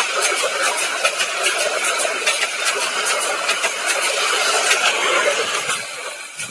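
Bangladesh Railway intercity passenger coaches rolling past close by: a steady rumble of wheels on rails with quick, irregular clicks of wheels over rail joints. It fades near the end as the last coach goes by.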